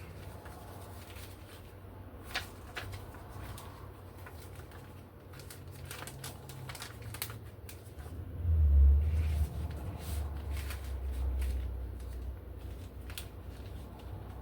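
Plastic vacuum-sealer bag and paper being handled, with scattered crinkles and clicks. About eight seconds in, a low rumble swells for a few seconds and then fades.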